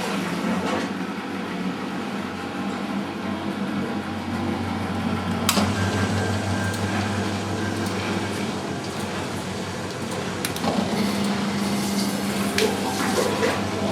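Three washing machines (Miele, Euronova and Sparmeister) running together in their spin cycle, a steady motor and drum hum. A sharp click sounds about five and a half seconds in.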